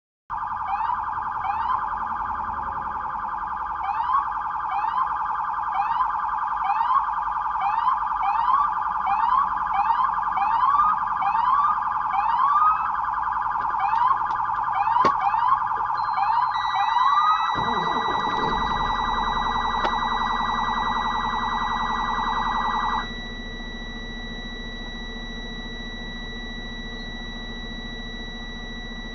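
Police sirens sounded as a wake-up call to truckers parked on an exit ramp: a loud steady tone with quick rising whoops repeating about twice a second. The whoops stop about 17 seconds in, and the sirens cut off about 23 seconds in, leaving a low steady hum and a thin high tone.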